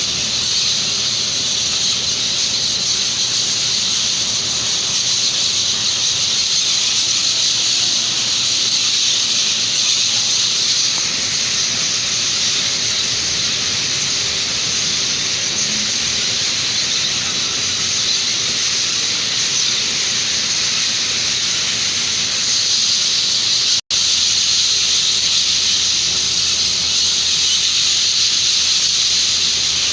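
A loud, steady, high-pitched hiss that holds unchanged, cutting out for an instant about 24 seconds in.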